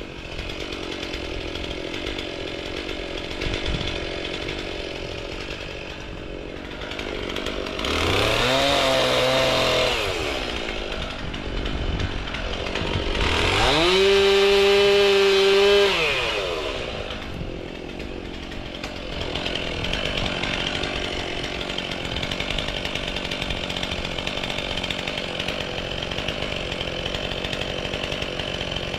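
Chainsaw revved to full throttle twice, about eight and fourteen seconds in, each time sweeping up to a steady high whine for two or three seconds and then dropping back. A steady engine idle runs underneath.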